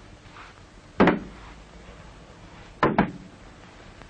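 Heavy knocks at a slow, uneven pace: one about a second in, then a quick double knock about three seconds in, each with a short ringing tail.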